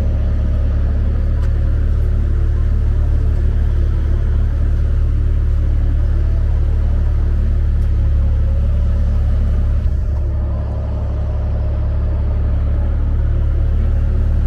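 Traffic at a busy city intersection, with cars driving through under a heavy, steady low rumble.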